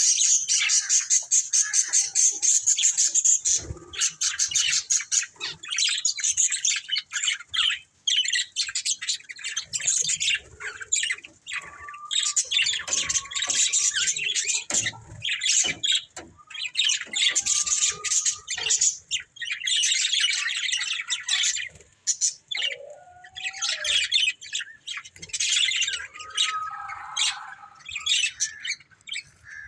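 Budgerigars chattering: fast, high warbling in phrases a few seconds long with short breaks, mixed with a few brief whistled notes.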